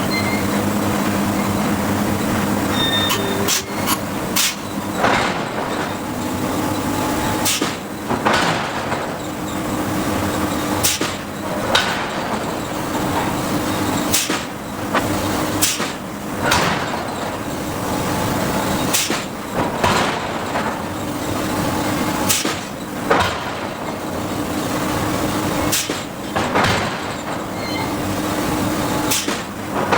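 Hydraulic forging hammer striking hot steel in sharp, irregular blows, often two in quick succession, over a steady machine hum.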